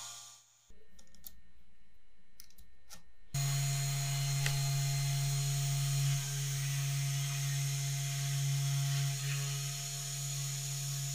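A few light clicks, then an electric power tool's motor starts about three seconds in and runs steadily with a low, even hum.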